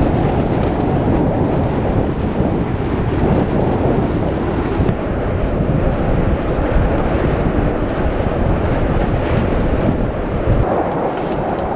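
Wind buffeting the microphone: a loud, steady rushing noise with a rumbling low end.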